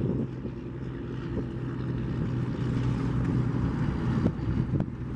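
A 1987 Cadillac Brougham's 307 cubic-inch V8 runs with a low, steady hum as the car pulls away at low speed.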